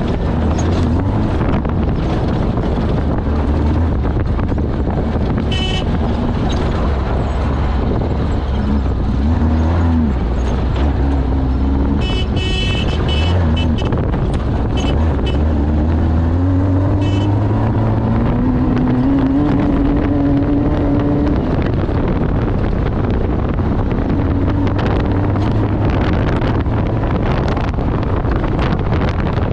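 Off-road race vehicle's engine running hard over rough ground, its pitch rising and falling with the throttle and climbing steadily a little past the middle, with heavy wind and rattle noise. Short horn toots sound about six seconds in and again in a quick series around twelve to fourteen seconds in.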